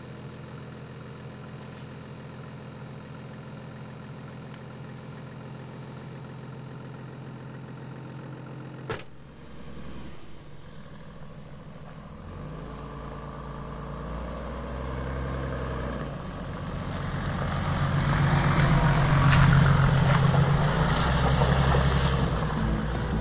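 Toyota Land Cruiser 80-series SUV idling steadily. After a sharp click about nine seconds in, it drives along a gravel forest track, its engine rising and falling in pitch as it changes speed. It grows much louder as it passes close, with tyre noise on the gravel and wet track.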